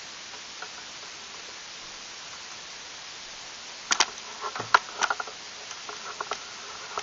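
Steady hiss, then from about four seconds in a scattered run of sharp clicks and light knocks, the loudest two close together near the start of the run.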